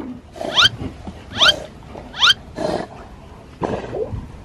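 Golden retriever whining: three short, high, rising squeals about a second apart, followed by softer noises.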